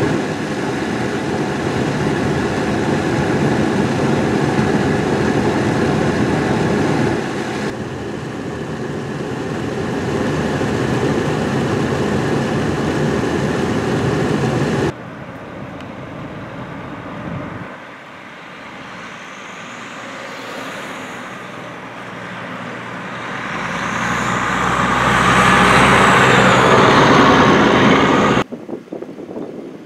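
Steady traffic and wind noise of a snowstorm on a snowy road, cutting off abruptly about halfway through. Near the end a passing vehicle swells up, with a high whine that rises and falls, then cuts off suddenly.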